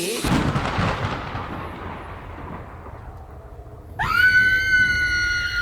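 Sound effects from a music video's soundtrack between two sections of the song. A thunder-like rushing noise slowly darkens and fades. About four seconds in, a steady high electronic tone slides up into pitch and holds.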